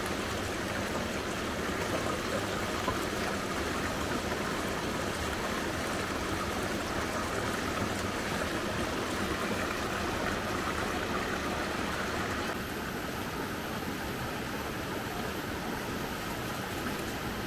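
River water flowing: a steady rush of running water. About two-thirds of the way through it turns slightly quieter and a faint, thin high tone comes in.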